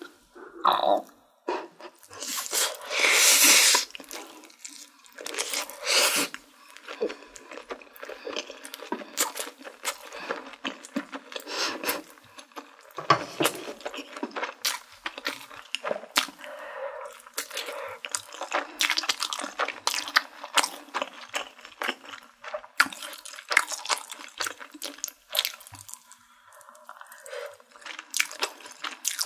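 Close-miked eating of spicy cheese buldak stir-fried noodles: a long, loud slurp a few seconds in and a shorter one a couple of seconds later, then wet chewing and lip smacks with many small clicks.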